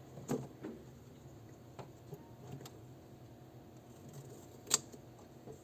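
A few scattered clicks and taps from handling an electrical wire and a cutting tool while preparing to strip the wire, with one sharper click near the end, over a faint steady hum.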